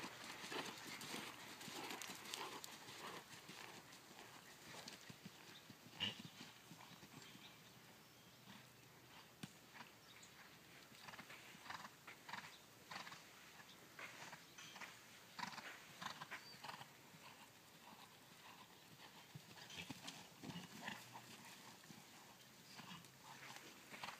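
Faint, rhythmic hoofbeats of a horse trotting and cantering on arena sand, with one sharper knock about six seconds in.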